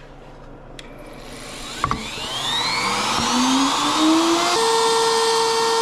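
Electric woodworking router switched on with a click, its motor whine rising in pitch for a few seconds as it spins up, then running steadily at full speed.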